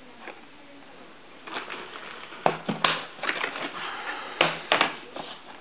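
Packaging and parts being handled during an unboxing: irregular rustling and scraping with several sharp clicks, starting about a second and a half in.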